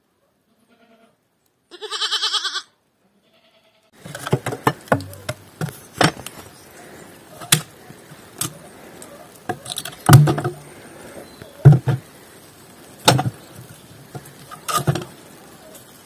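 A young goat kid bleats once, about two seconds in. From about four seconds in, split firewood logs knock and clatter against each other and the brick firebox as they are loaded into a brick stove, in irregular sharp knocks.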